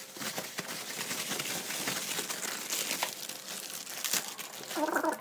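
Plastic packaging crinkling as it is handled: a sheet of bubble wrap being lifted off and a clear plastic bag pulled open, a dense, continuous crackle.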